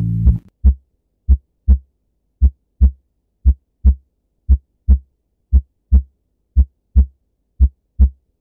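Heartbeat sound effect: slow pairs of deep thumps, lub-dub, about one pair a second, starting as the music cuts off just after the start.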